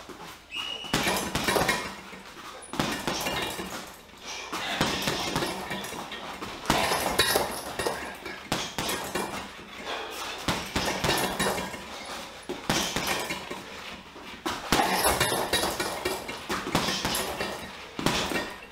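Boxing gloves punching a Leone heavy bag in quick combinations of jabs and hooks. Each combination is a burst of several hard thuds, with a fresh one every second or two.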